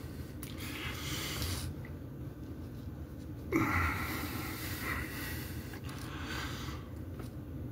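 A man breathing hard with exertion: three long, hissing exhalations. The loudest comes about three and a half seconds in and starts with a short grunt.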